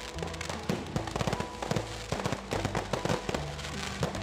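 Fireworks going off in quick, irregular succession: many sharp bangs and crackles. Background music with held notes plays underneath.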